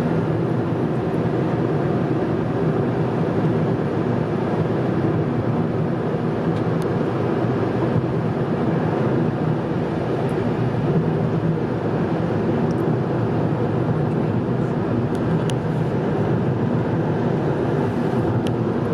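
Steady road and engine noise of a car driving at highway speed, a low even drone with no breaks.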